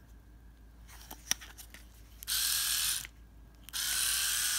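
Small motor of a stripped-down Philips AquaTouch electric shaver switched on twice in short runs, about a second and then about a second and a half, with a faint whine under the buzz. A few light handling clicks come before the first run.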